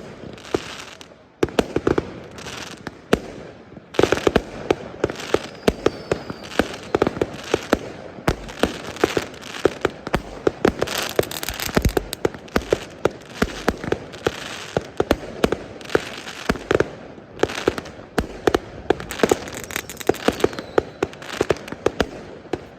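Many fireworks and firecrackers going off: a dense, irregular stream of bangs and crackling pops, several a second, with a short lull just after the start.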